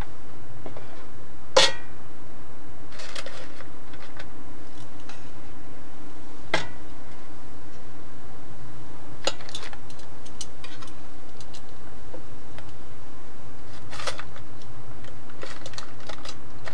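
Stainless-steel kitchen tongs clicking and clinking against a metal baking tray and an air-fryer basket, a sharp tap every few seconds, over a steady low hum.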